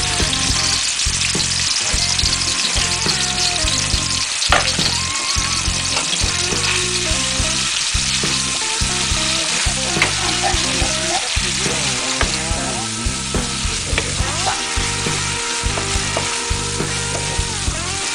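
Ground spice paste sizzling steadily in hot oil in a wok as it is sautéed and stirred with a spatula, with occasional sharp clicks of the utensil against the pan. Background music plays underneath.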